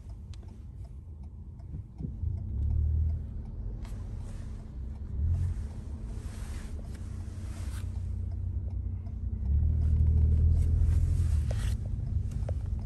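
Car interior noise while driving: a steady low road-and-engine rumble that swells louder a few times, most strongly for about two seconds near the end.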